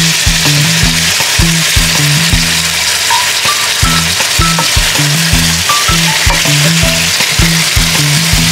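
Chicken pieces sizzling in hot oil with garlic and onion in a frying pan, a steady hiss. Background music with a steady beat plays over it.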